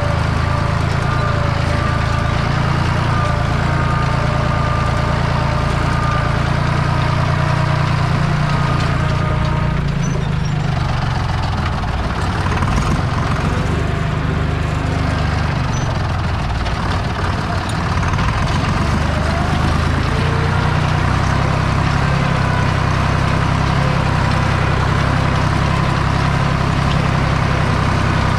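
Deutz 5206 tractor's air-cooled three-cylinder diesel running steadily as heard from the open cab, with the note wavering and dipping for several seconds around the middle before settling back to a steady pull.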